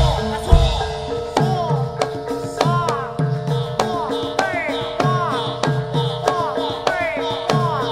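Javanese gamelan accompaniment for a jaran kepang dance: kendang hand drums play a quick, repeating pattern of sharp strokes and low hits with bending pitch, over held, ringing metallophone tones.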